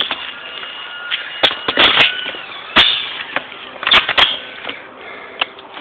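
Airsoft guns firing single shots: about eight sharp clicks at uneven intervals.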